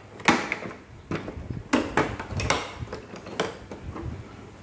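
Latches of a hard plastic tool carrying case being unsnapped by hand: about five sharp plastic clicks and snaps, with light handling of the case between them.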